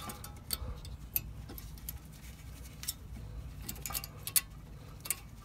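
Irregular light metallic clicks and small scrapes as new front brake pads are slid and pressed into the caliper bracket's hardware clips, over a faint steady low hum.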